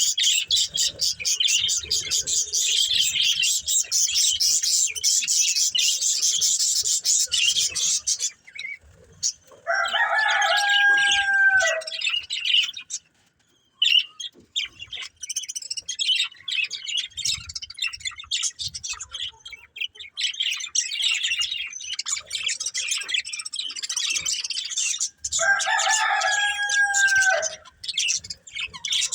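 Pet budgerigars chattering and warbling in fast, high twittering. The chatter breaks off for a few seconds near the middle. A lower, drawn-out call that falls slightly at its end sounds twice, once about ten seconds in and again near the end.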